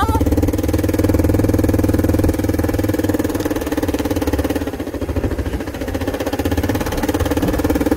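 Small off-road vehicle's engine running steadily at low speed, easing off briefly about five seconds in.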